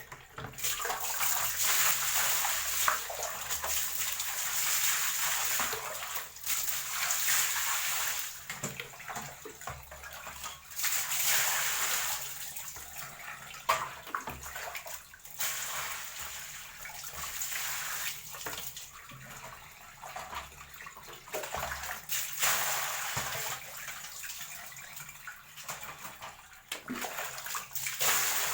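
Water spraying and splashing over a dirty TV circuit board as it is washed, coming and going in uneven spells with short pauses and a few knocks.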